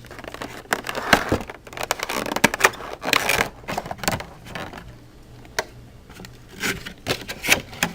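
Packaging being torn open and handled: irregular crinkling with sharp clicks and snaps, busiest between about one and four seconds in and again near the end.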